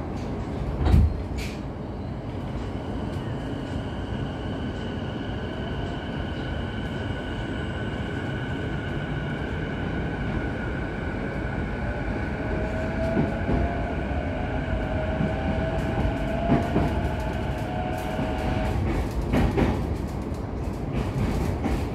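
JR East E233-series electric train accelerating, heard from inside the car: the inverter and traction motors give a steady whine of several high tones over the rumble of the wheels, and a lower tone rises in pitch. Near the end the whine cuts off as power is shut off and the train coasts, with a few rail-joint clicks. A thump comes about a second in.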